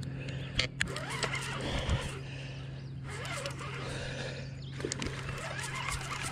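Baitcasting reel being cranked in stretches to bring in a hooked flathead catfish, with clicks from the reel and handling noise.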